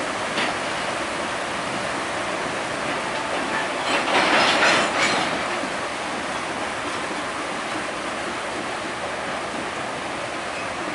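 Freight train of covered hopper cars rolling slowly through flood water over the track, the wheels churning and splashing steadily. A louder burst of clatter comes about four seconds in.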